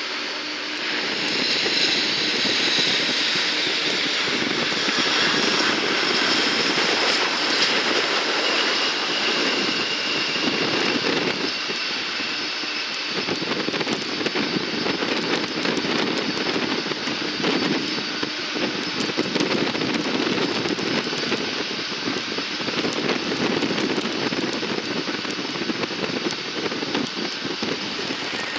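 Jet airliner engines running loud at close range, a dense rushing roar with a high whine in the first several seconds that fades into the roar.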